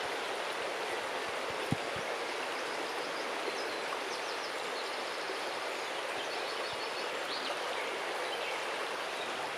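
River water flowing and rippling over stones, a steady rushing. A bird chirps in short, rapid high trills twice around the middle, and a single knock sounds just under two seconds in.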